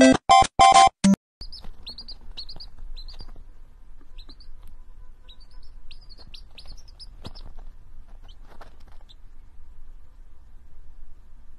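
A baby chick peeping, short high chirps in quick clusters that stop about nine seconds in. Before it, a second of bouncy staccato music notes cuts off abruptly.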